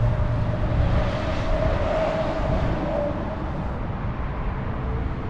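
A motor vehicle passing by: a steady low rumble with a faint humming tone that swells and then fades over the first three seconds.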